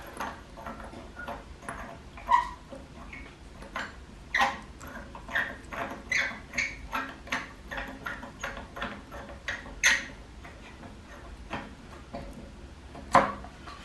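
Irregular knocks, clinks and scrapes of a hard piece being worked down into the refractory-lined bottom of a homemade furnace. A few louder knocks stand out, the last just before the end.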